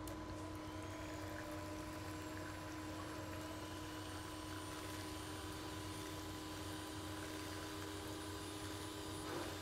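A steady low hum with a faint high whine, unchanging in level.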